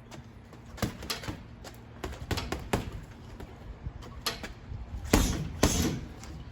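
Boxing gloves punching a heavy bag: thuds in short combinations, the two hardest just after five seconds in.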